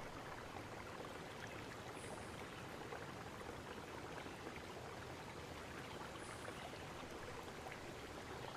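Faint, steady hiss-like noise with no distinct events.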